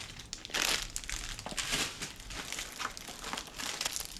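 Plastic packaging crinkling and rustling as it is handled, in irregular crackles with no steady rhythm.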